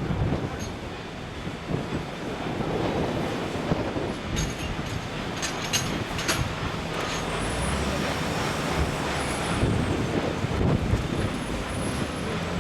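Heavy machinery running, most likely the Everdigm ECD45E top hammer drill rig, with a dense steady rumble. A run of sharp metallic clicks comes around the middle, and a few short high squeals follow near the end.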